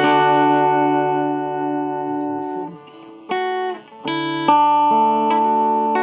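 Electric guitar played through a Deviser TG-30 practice amplifier: long held notes ringing out, a short gap a little before halfway, then new notes picked and sustained.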